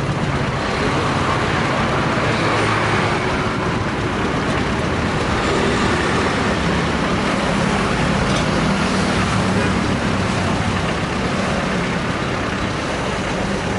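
Steady road traffic: motor vehicles running past with a continuous low engine hum.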